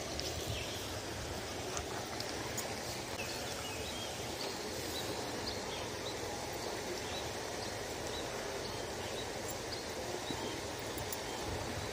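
Steady outdoor background hiss, with faint short chirps and a few small ticks scattered through it.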